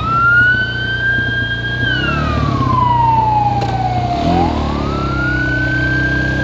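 Ambulance siren wailing: the pitch rises quickly, holds high for about two seconds, then slides slowly down, twice over. A steady low engine hum runs underneath.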